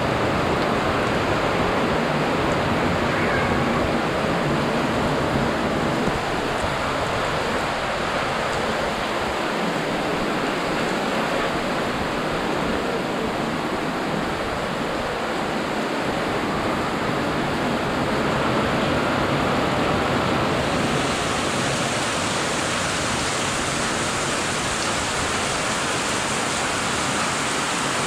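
Heavy tropical rain pouring steadily on foliage, roofs and a road: a dense, even hiss. About three quarters of the way through it turns sharper and hissier.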